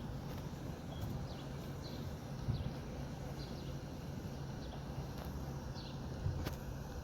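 Outdoor background: a steady low hum with faint, short, high bird chirps repeating every second or so, and one light click near the end.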